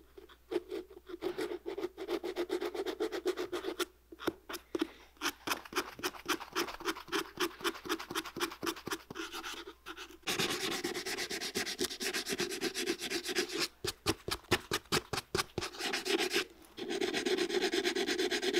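Rust being scrubbed off rusted metal boot hardware: quick back-and-forth scratching strokes, about four or five a second, turning into continuous scrubbing a little past the middle and again near the end.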